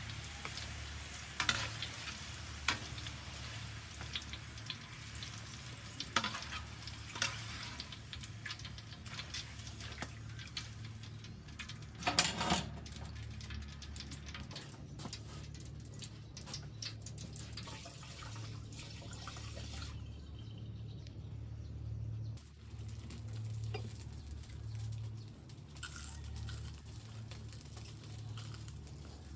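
Hot oil sizzling and crackling in a large wok during deep-frying, with a loud knock about twelve seconds in; the crackle thins out in the last third.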